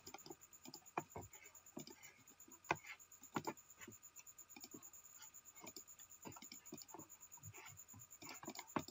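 Faint, irregular clicks and taps of a computer keyboard and mouse, with a couple of sharper clicks about three seconds in.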